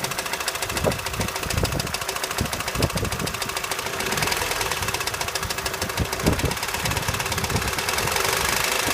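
Opel Astra H Z16XEP 1.6-litre four-cylinder petrol engine running with a rapid, even knocking, rising a little in revs at times as gas is given. A service station blamed the knock on a dirty, factory-defective intake manifold and its TwinPort flaps, not on the camshafts or pistons.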